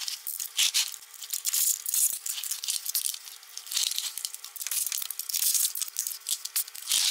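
Ratchet wrench clicking in quick, irregular runs of sharp ticks as the 21 mm nuts holding the truck's front bumper are loosened from underneath.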